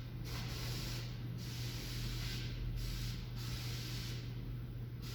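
Steady hiss with a constant low hum underneath.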